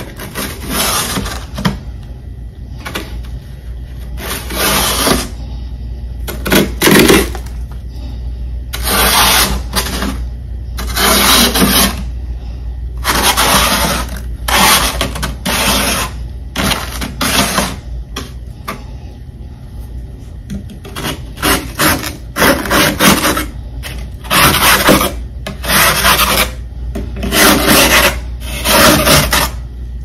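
Freezer frost being scraped in repeated, irregular strokes, each under a second long, over a steady low hum.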